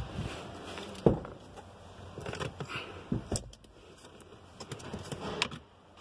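Scattered knocks, clicks and rustling from someone moving about in a pickup's cab and handling a loose plastic trim piece, with one sharper knock about a second in.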